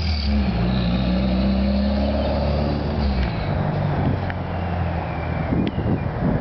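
Turbocharged Toyota MR2 running an open downpipe with no muffler, its exhaust loud and unsilenced. A steady low engine note holds for about three seconds, then breaks up into a rougher rumble as the car moves off down the street.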